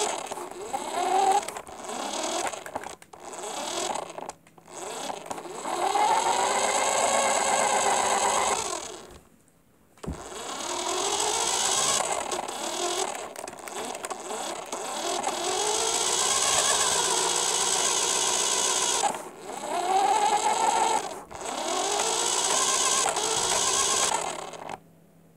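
Electric motor and gears of an RC Mustang car whining as it drives, the pitch rising and falling with the throttle in repeated surges. It stops and starts in short bursts at first, cuts out briefly partway through, and stops just before the end.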